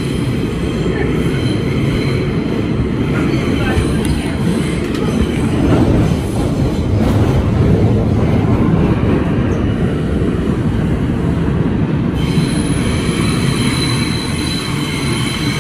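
Bombardier R142 subway train running through a tunnel, heard from inside the car: a steady, loud rumble of wheels on the track. A faint high squeal of wheels on rail comes near the start and again in the last few seconds.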